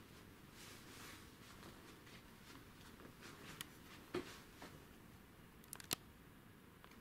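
Near silence: small-room tone with a few light clicks and taps, two a little over halfway through and a short cluster near the end.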